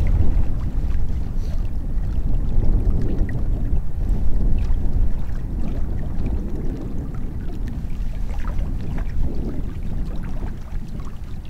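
Wind buffeting the microphone: a loud, gusting low rumble, with a few faint ticks over it.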